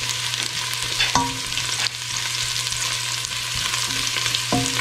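Minced garlic sizzling in hot olive oil in a stainless steel pot while a silicone spatula stirs it against the metal, the garlic frying toward golden brown.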